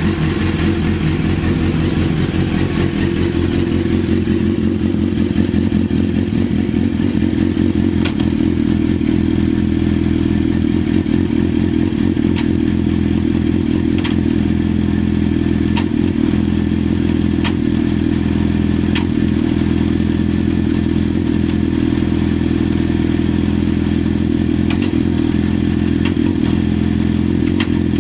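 Suzuki GSX-R600 inline-four motorcycle engine idling steadily, with no abnormal noise.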